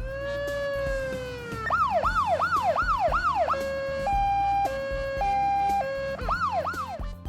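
Emergency-vehicle siren going through its patterns: a slow wail that sinks away, then a fast rising-and-falling yelp, then a slow two-tone hi-lo alternating between two pitches, and the fast yelp again near the end.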